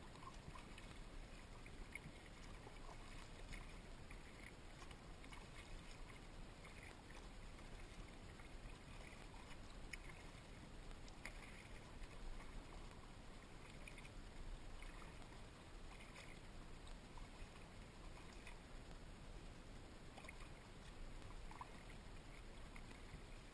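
Kayak paddle strokes in calm water: faint dips and drips from the blade every second or so, over a low steady rumble.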